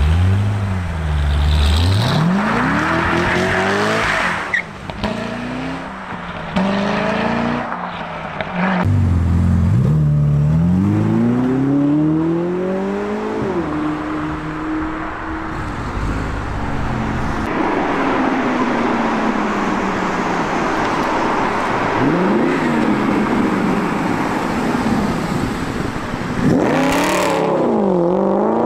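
Several sports cars accelerate hard one after another, abruptly edited together. Each engine revs up in rising sweeps through the gears. A C6 Chevrolet Corvette's V8 comes first, a Ferrari SF90 about halfway, and an Aston Martin Vantage revs sharply near the end.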